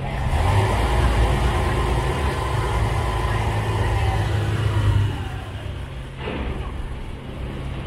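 Passenger ferry's engine running under way with a low rumble and water wash, then easing off about five seconds in, its note falling and the level dropping.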